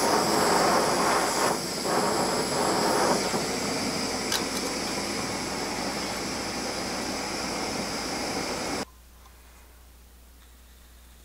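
Handheld gas torch flame hissing steadily while it heats small steel broadhead parts, rougher and louder in the first few seconds; it cuts off suddenly about nine seconds in, leaving only faint room tone.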